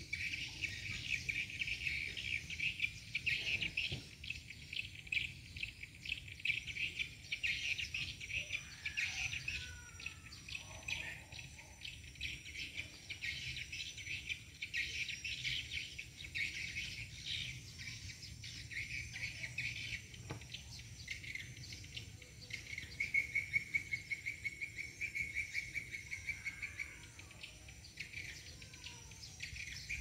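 A chorus of insects chirring in rapid pulses, with a few short bird calls now and then over a low background rumble.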